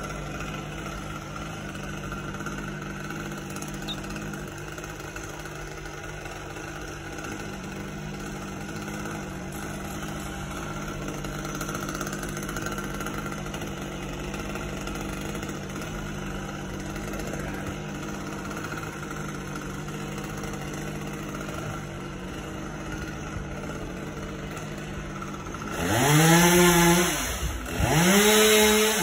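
Chainsaw engine idling steadily, then revved hard twice near the end, its pitch sweeping up and back down each time.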